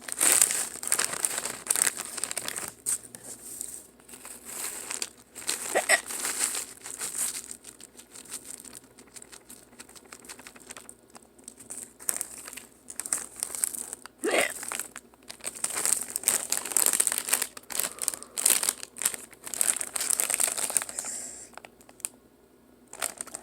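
A Doritos chip bag crinkling and rustling as it is handled, with two short hiccups, one about six seconds in and one about fourteen seconds in.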